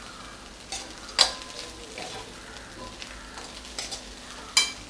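Steel spoon stirring flattened rice in a stainless steel pan, scraping along the pan. The spoon strikes the pan rim twice with sharp metallic clinks, about a second in and near the end. The pohe sizzles steadily on the gas underneath.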